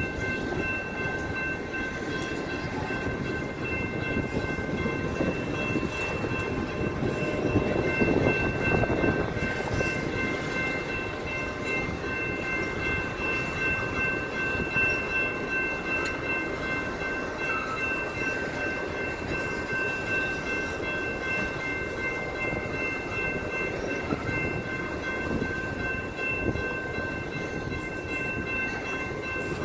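Freight train of tank cars and covered hoppers rolling steadily past a grade crossing: a continuous rumble and clatter of wheels on rail, with steady high-pitched tones over it.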